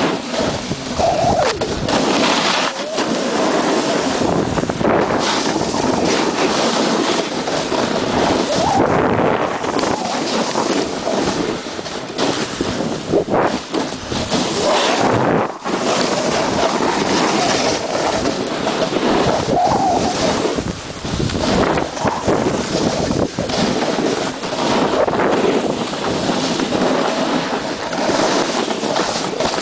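Steady rushing noise of wind buffeting the microphone and skis hissing through deep powder snow on a downhill run, swelling and dipping as the skier turns.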